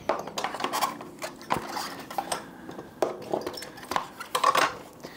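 Plastic bicycle fender being fitted to an e-bike: irregular clicks, knocks and clinks of the fender and its small mounting parts being handled.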